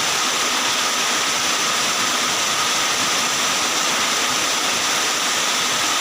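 Heavy, torrential rain pouring down in a steady, unbroken hiss.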